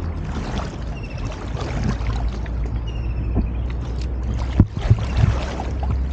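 Water sloshing and splashing around a capsized kayak as the paddler, held on the paddle in the water, sweeps up into a roll, over a steady low rumble. A few sharp knocks come about four and a half to five and a half seconds in.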